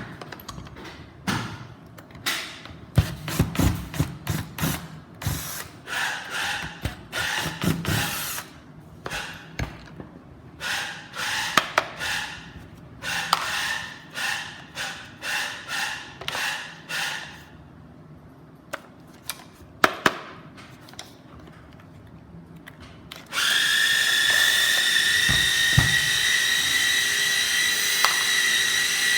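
A cordless power tool's electric motor whirring in many short bursts with knocks and clicks between them. About 23 seconds in, the motor spins up with a slightly rising whine and then runs steadily.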